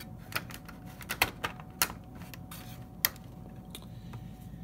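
Small, irregular plastic clicks and taps as an HO scale Bachmann SD40-2 model locomotive is turned around by hand and set back down on the track, mostly in the first three seconds.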